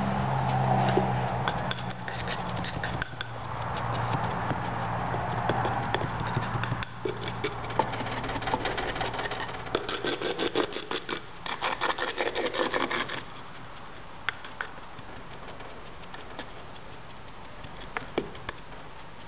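Moulding sand being packed into a wooden casting flask: rubbing and scraping of sand and wood, then a run of quick taps as a wooden rammer tamps the sand. A steady low hum runs under the first third and then stops.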